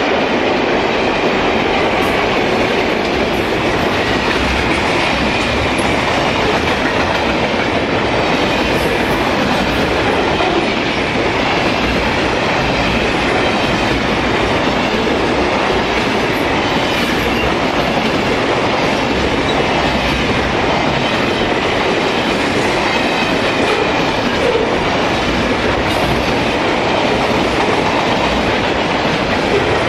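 Freight train wagons rolling past, container flats and then grain hoppers, in a steady loud rumble and rattle of steel wheels on rail, with occasional sharp clicks over rail joints.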